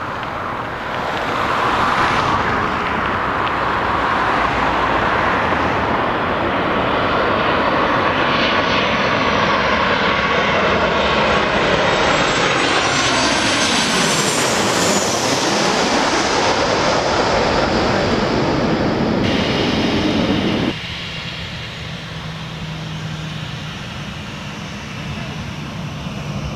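Twin jet engines of a landing Boeing 737-800 passing low overhead: the noise builds, then sweeps in pitch as the jet goes over about halfway through. About three-quarters of the way in it cuts abruptly to the quieter, steady engine hum of a Ryanair Boeing 737 taxiing.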